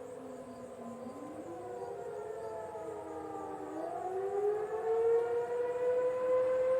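Several distant outdoor tornado sirens wailing at once, their pitches sliding down and back up out of step with each other. About four seconds in, one swells louder and climbs to a steady held tone.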